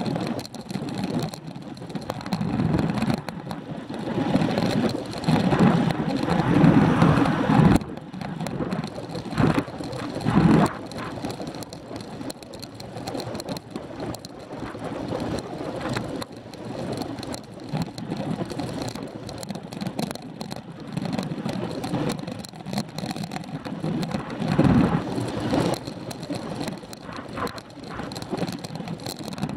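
Wind rushing over the microphone of a camera on a bicycle riding at about 19 mph, swelling and fading in gusts, with tyre and road noise beneath.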